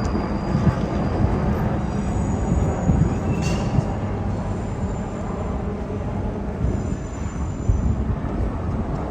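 Train running past with a steady rumble, with faint high-pitched whines now and then and a short click about three and a half seconds in.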